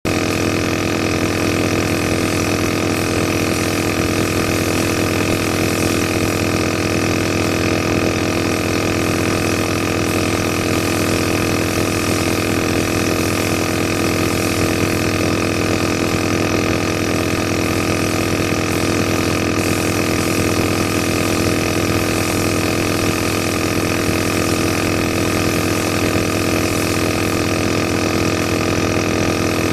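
Vintage aerosol nebulizer's compressor running steadily: an even, unchanging motor hum with a strong low buzz.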